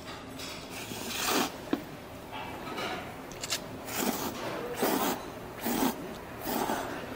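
A person slurping thin wheat noodles (janchi guksu) in quick drawn slurps, about one a second, with a short click near the start.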